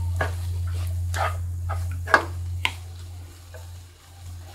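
Wooden spatula stirring and scraping cooked raw-banana pieces in a ceramic-coated frying pan, with a few sharp knocks against the pan, the loudest about two seconds in. The stirring dies away after about three seconds over a steady low hum.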